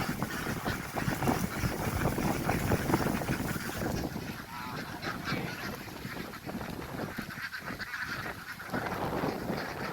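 A large flock of ducks quacking all at once in a dense, continuous chatter, louder in the first few seconds and easing a little after.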